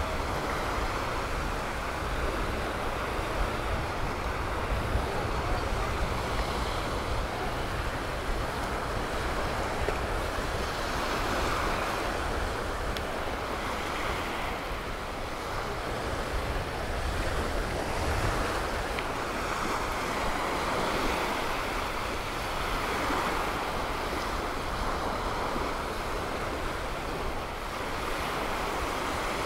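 Surf washing onto a beach in a steady wash that swells every few seconds, with wind rumbling on the microphone.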